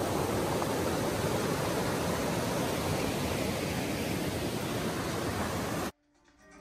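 River water rushing steadily over shallow cascades and rapids, cut off suddenly near the end.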